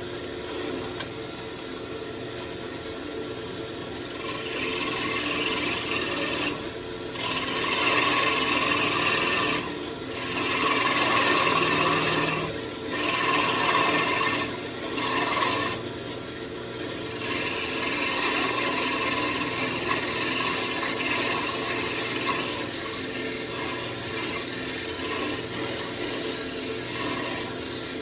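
Wood lathe running with a walnut wand blank spinning, a steady hum underneath. About four seconds in, long hissy scraping passes against the spinning wood begin, broken by several short pauses.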